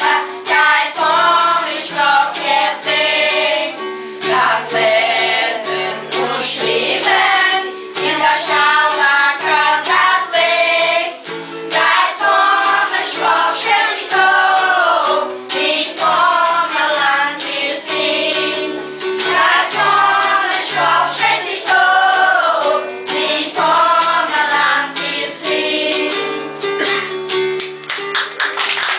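A group of schoolchildren singing a song together in phrases, accompanied by an acoustic guitar, with an adult woman's voice among them.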